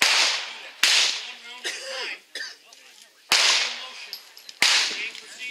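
Four handgun shots, each a sharp crack with a short echoing tail under the range's roof, the first right at the start, then about a second in, about three seconds in and near the end.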